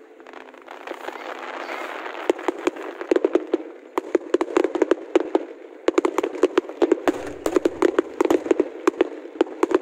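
Fireworks display: after about two seconds of hiss, a rapid run of sharp bangs and crackles, several per second, that carries on to the end.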